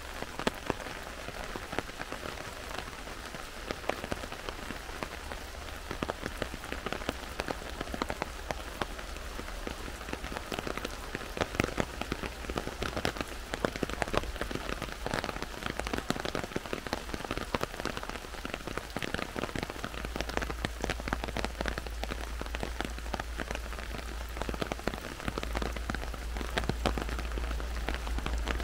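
Heavy rain falling on a forest canopy and undergrowth, a dense steady hiss with many separate drops striking close by. A low rumble beneath it grows stronger about two-thirds of the way through.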